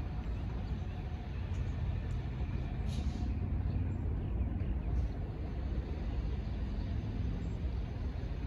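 Steady low rumble of vehicle noise, with a short hiss about three seconds in.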